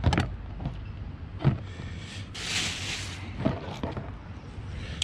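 A filleting knife and hands working an Australian salmon fillet on a plastic cooler lid. A few knocks and taps, the loudest at the start and about a second and a half in, and a brief scraping hiss a little past halfway, over a steady low rumble.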